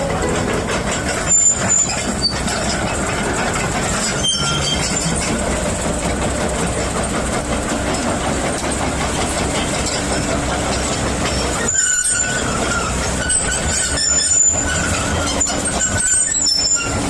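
Kobelco 130 13-ton excavator running steadily, with high squeals that come and go over the machine noise.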